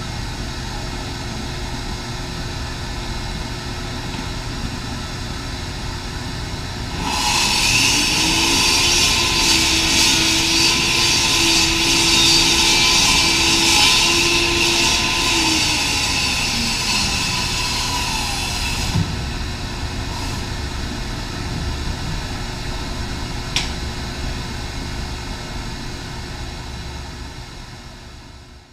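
Table saw running, then ripping a long cut through a plywood sheet: the sound grows much louder and harsher for about twelve seconds as the blade is in the wood, then drops back to the saw running free and fades near the end.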